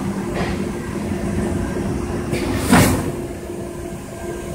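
Thermoforming packaging machine running: a steady hum and low drone, with a short hiss about half a second in and a louder burst of air hiss with a thump near the middle as the machine cycles.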